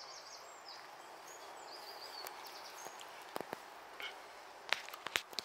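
Birds chirping over a steady outdoor background hiss, with a few sharp clicks in the second half.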